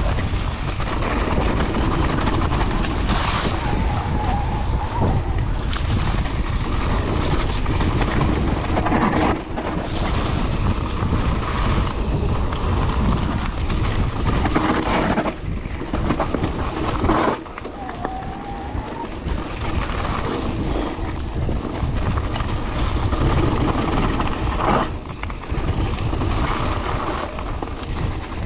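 Mountain bike ridden fast down a gravel trail: tyres crunching and the bike rattling over the bumps, with sharp knocks every few seconds and wind buffeting the handlebar-mounted microphone.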